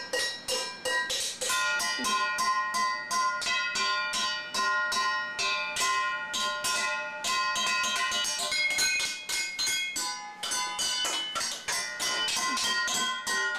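Stainless steel pots and pans struck rapidly with a spoon as a toy drum kit: a quick, uneven run of metallic clanks, about three to four a second, each pot ringing on at its own pitch.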